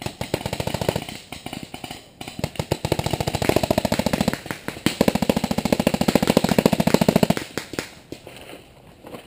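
Paintball markers firing in rapid strings of shots, many a second, with a brief pause about two seconds in; the firing stops about seven seconds in, leaving a few single shots.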